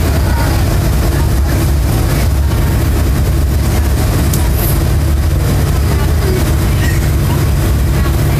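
Steady low rumble of a car's engine and tyres on the road, heard inside the moving car.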